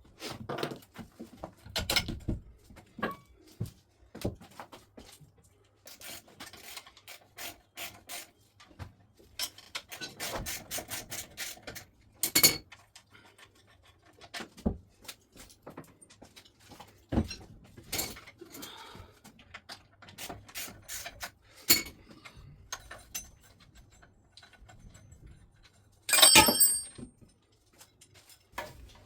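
Hand tools and metal motorcycle parts being worked during dismantling: irregular clinks, knocks and scraping, with a louder ringing clatter near the end.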